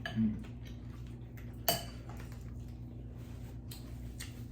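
Eating utensils clinking against a dish: one sharp, ringing clink a little under two seconds in and a few lighter taps, over a steady low hum.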